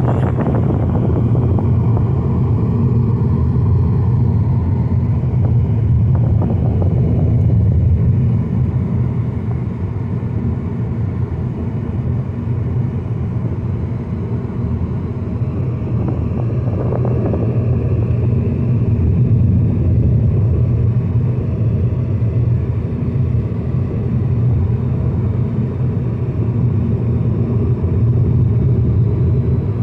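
Steady low rumble of a car driving along an open road, heard from inside the cabin: tyre and engine noise.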